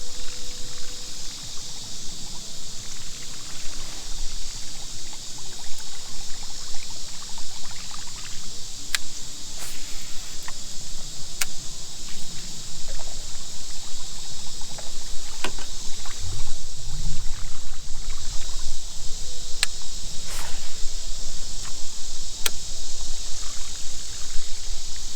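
A boat drifting on a river, with water trickling and lapping against the hull, a steady high hiss, and a few sharp clicks and knocks scattered through.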